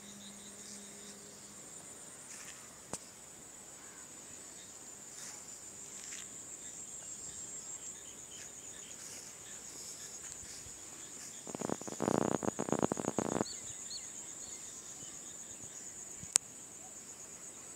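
Insects chirring in a steady, high-pitched pulsing trill. About twelve seconds in, a loud rattling burst lasts about two seconds, and there are two sharp clicks.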